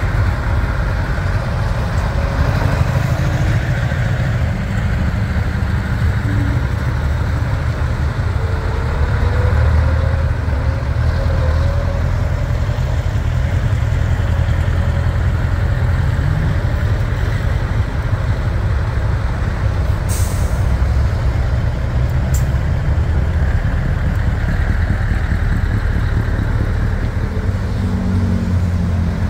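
Heavy vintage trucks' diesel engines running at low revs, a steady deep rumble. Two short, sharp hisses of released air from the air brakes come about two-thirds of the way through.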